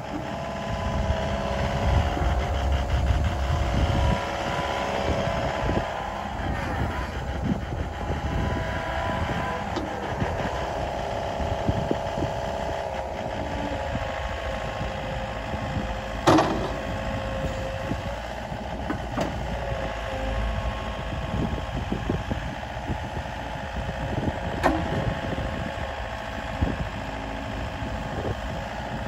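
Komatsu PC138US-11 excavator's diesel engine running under hydraulic load as the boom and bucket are worked, with a steady whine over the engine note. Two short sharp knocks, about halfway through and again near the end.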